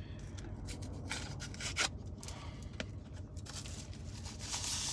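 Food packaging being handled and opened: rubbing and crinkling with scattered sharp clicks, turning into a denser rustle near the end.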